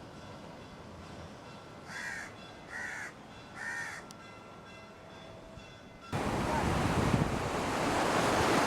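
A crow cawing three times, under a faint background hiss. About six seconds in, it cuts off abruptly to a loud, steady rushing noise.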